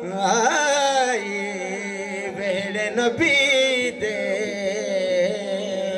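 A man singing a Punjabi devotional song into a microphone, drawing out long wavering, melismatic notes.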